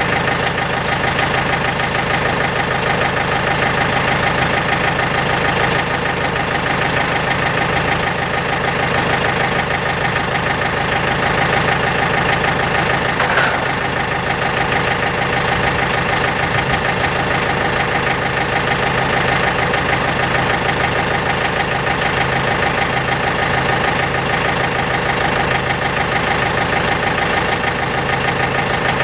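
An engine idling steadily, with one faint knock about 13 seconds in.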